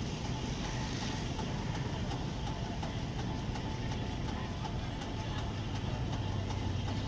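Railway heavy crane's engine running steadily with a low hum, which grows a little stronger near the end.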